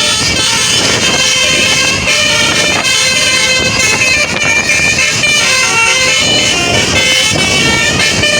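Basuri telolet musical horn on a tour bus, fitted with a DAV module, playing a tune of shifting horn notes without a break.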